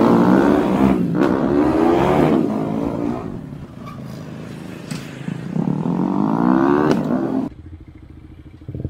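Honda GTR 150 single-cylinder motorcycle engine accelerating through the gears with a quick shifter: the engine pitch climbs, breaks off sharply at each clutchless upshift as the shifter briefly cuts power, then climbs again. A second run of rising revs in the latter half ends in a sudden cut, leaving the engine quieter.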